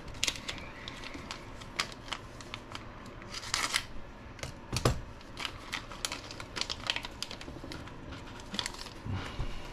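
Small plastic parts bags crinkling and rustling, with light clicks of small parts being handled. There is a single heavier knock about five seconds in.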